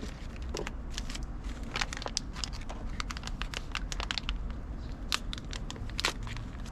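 Plastic bags of cut nails being handled: the plastic crinkles and the loose nails give scattered small clicks.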